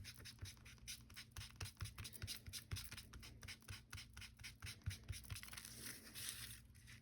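Ink being rubbed onto paper through a stencil with an applicator: faint, quick scratchy strokes, several a second.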